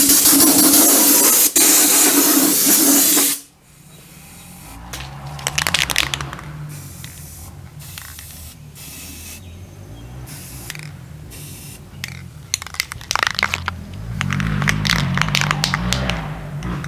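Loud spraying hiss that cuts off abruptly about three seconds in, followed by several shorter, quieter sprays.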